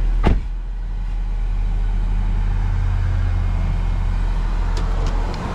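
Car engine running steadily, heard from inside the cabin as a low drone, with a sharp click just after the start.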